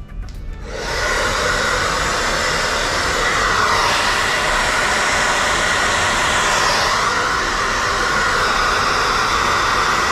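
Handheld hair dryer switched on about half a second in, then blowing steadily, its sound shifting as it is moved about the head.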